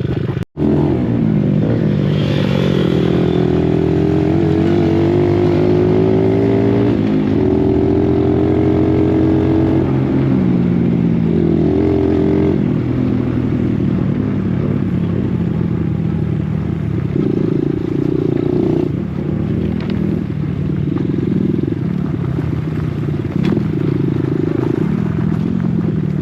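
Dirt bike engine running while riding, its pitch climbing and dropping again and again as it revs and shifts. The sound cuts out for an instant near the start.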